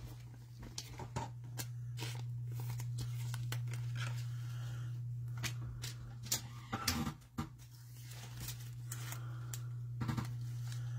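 Trading cards being handled and sorted, a scattering of light clicks and rustles over a steady low hum.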